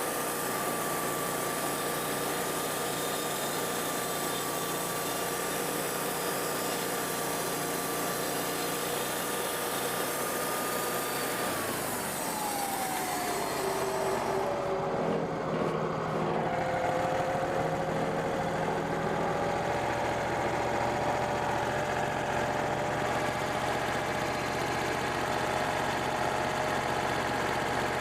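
Wood-Mizer portable band sawmill running steadily, its engine drone holding a pitch, then falling in pitch about twelve seconds in and settling at a lower steady pitch.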